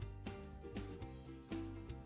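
Background music: a light tune of plucked notes, with no speech.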